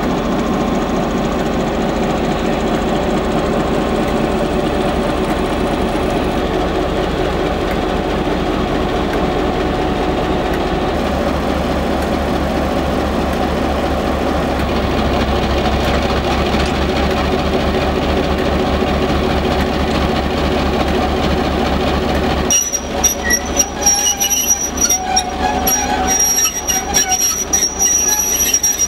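Da class diesel-electric locomotive's 12-cylinder EMD diesel engine idling steadily while it sits on the turntable. About three-quarters of the way through the sound changes abruptly, and a high, wavering squeal of steel wheels on rail comes and goes over the engine until the end.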